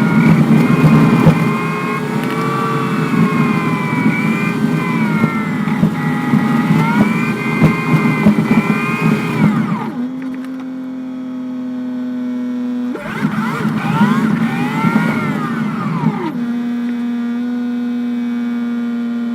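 School bus engine running on the road, its pitch rising and falling as it accelerates and changes gear, then holding a steady drone; the sound changes abruptly about ten, thirteen and sixteen seconds in.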